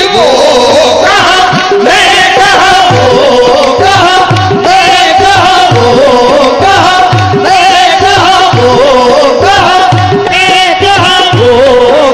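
Qawwali music: harmonium playing a melody over a steady tabla rhythm, with a singing voice.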